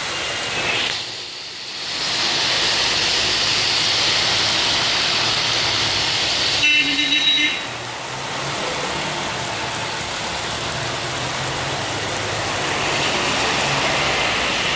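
Heavy rain hissing down with traffic passing on the flooded road, tyres swishing through the water. A vehicle horn sounds for just under a second about halfway through, the loudest sound.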